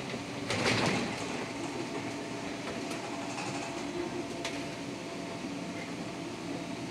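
Cabin sound of a Škoda 32Tr SOR trolleybus in motion: steady electric drive hum and body rattle as it rounds a turn. A brief louder rush of noise comes about half a second in.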